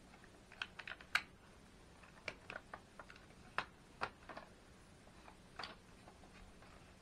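Irregular plastic clicks and taps from the vacuum's brush roll, belt and bearing housings being handled and seated in the floor head, with a few sharper snaps about a second in and around three and a half to four seconds in.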